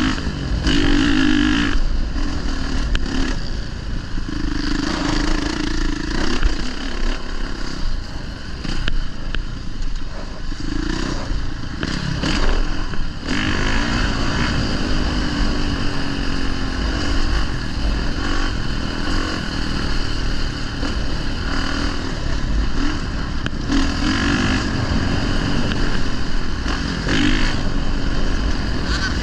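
Honda 450 motocross bike's single-cylinder four-stroke engine being ridden hard, its pitch repeatedly rising and falling as the throttle is opened and closed.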